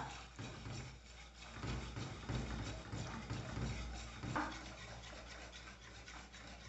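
Faint scraping and rubbing of a whisk stirring milk in an aluminium pot while a rice-flour and coconut-milk batter is poured in, stirred without stopping so it doesn't form lumps. A light knock about four seconds in.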